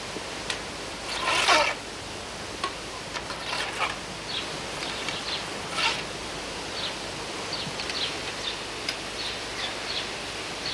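Sections of a roubaisienne fishing pole scraping and clicking against each other as they are handled and slid apart, a few separate scrapes, over scattered short bird chirps.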